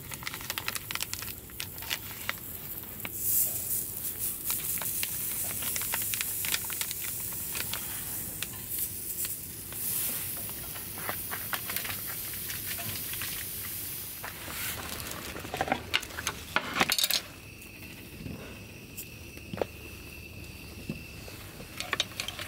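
Sausages sizzling and popping on a hot ridged cast-iron grill plate over a gas camp stove. A louder flurry of pops comes around two-thirds of the way in, then the sizzling drops away, leaving a faint steady high tone.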